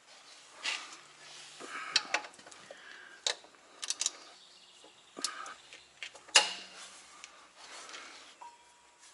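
Scattered metallic clinks and knocks of tools and metal parts being handled while a drive belt is worked back onto the truck engine's pulleys, with one louder knock about six seconds in.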